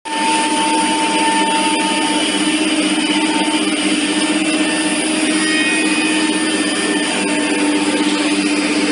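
WoodTec VP-1325 CNC router's spindle milling a wavy relief into a wood panel, a steady whine over rushing cutting and dust-extraction noise.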